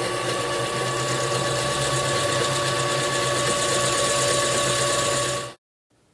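Benchtop drill press running steadily, its bit boring lengthwise into a cocobolo pen blank clamped in a drill press vise. It stops abruptly near the end.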